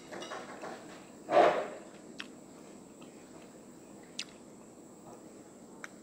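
A person eating soup with a metal spoon: one short, loud mouth noise about a second and a half in, then three faint clicks of the spoon against the dish.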